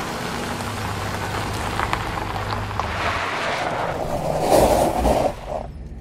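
Radio-drama sound effect of a car driving: a steady rushing noise with a low engine hum that swells louder about four and a half seconds in, then drops away sharply just after five seconds.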